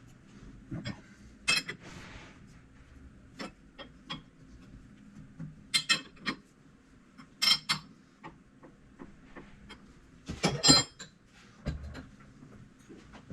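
Metal clinks and clanks from steel parts and tools being handled and set down: a scatter of sharp strikes, the loudest cluster about ten seconds in.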